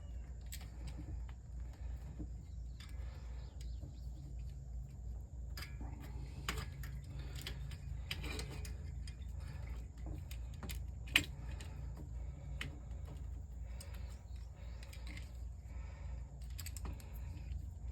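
Scattered small clicks and taps of hand tools and metal fittings being handled, with one sharper click about 11 seconds in, over a steady low rumble.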